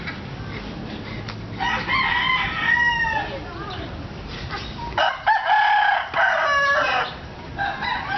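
A rooster crowing, twice: one long call about two seconds in and another about five seconds in.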